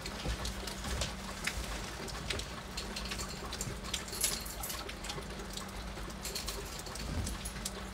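Heavy rain on a window, with many irregular drop taps against the glass over a steady rushing hiss, and a low steady hum underneath.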